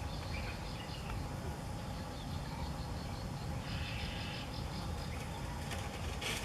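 Outdoor ambience: a steady low rumble with faint, insect-like high chirping that swells in the middle, and one sharp click near the end.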